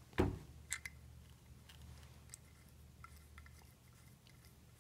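Small metal screws being handled and set into the aluminium body of a 200-4R transmission front pump: a sharper click or knock just after the start, another soon after, then scattered faint ticks.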